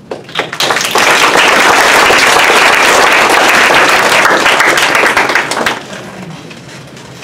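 Audience applauding: a few first claps build quickly into full applause, which dies away about six seconds in.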